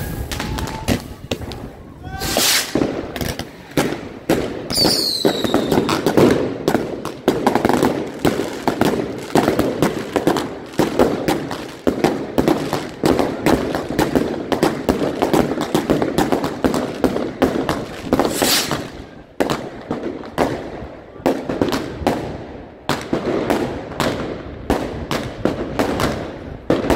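Fireworks and firecrackers going off in a dense, continuous string of sharp cracks and bangs. A whistle falls in pitch about five seconds in, and a couple of rushing bursts stand out near the start and past the middle.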